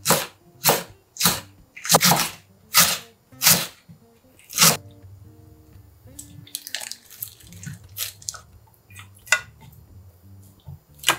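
Kitchen knife chopping green chili on a thick end-grain wooden cutting board: about eight firm knocks over the first five seconds. After that come soft wet squelches as kimchi is dropped into a thin aluminium pot, then a few light taps as pieces of fried tofu are set in.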